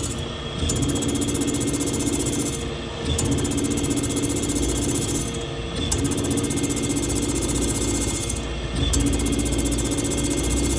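A CNC machine working on a motorcycle seat, running with a steady hum and a fast rattle in runs of about two seconds. Short pauses split the runs, each ending in a sharp click.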